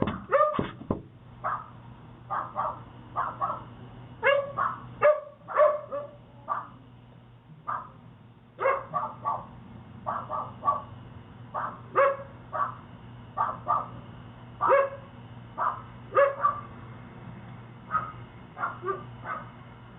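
A dog barking again and again in groups of two to four barks, heard through a doorbell camera's microphone.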